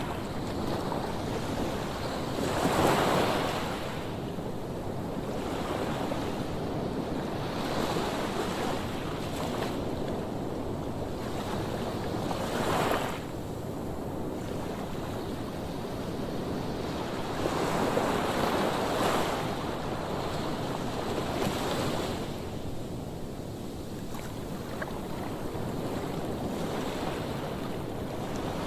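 Ocean surf: a steady wash of waves that swells louder every several seconds as waves break, with wind on the microphone.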